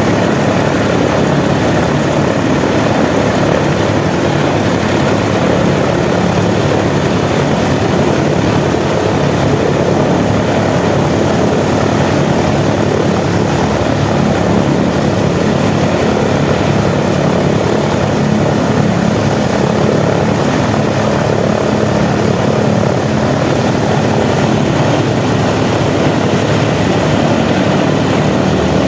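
Boeing B-17 Flying Fortress's number 1 engine, a Wright R-1820 Cyclone nine-cylinder radial, running steadily on the ground with its propeller turning.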